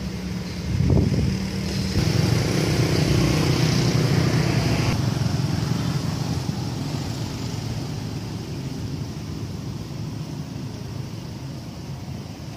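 Low rumble of a motor vehicle's engine, getting louder about two seconds in and then slowly fading away.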